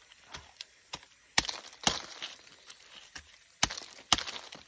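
Machete chopping at the spiny husk of a red-spined Dayak durian: sharp blade strikes in two pairs, each about half a second apart, with a few lighter taps between.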